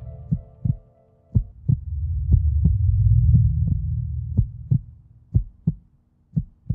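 Closing soundtrack sound design: a heartbeat-like double thump repeating about once a second over a low drone that swells and then fades out. A held chord cuts off about a second and a half in.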